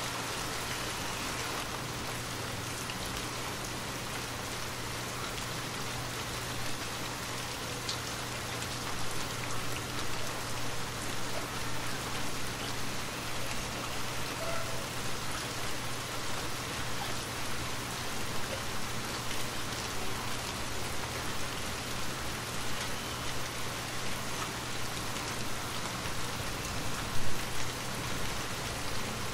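Steady rain falling, a dense even hiss of drops, with a low steady hum beneath it. Two brief louder hits stand out near the end.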